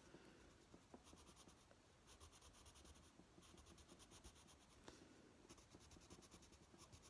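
Faint scratching of a Prismacolor coloured pencil on paper, steadily block colouring a small area.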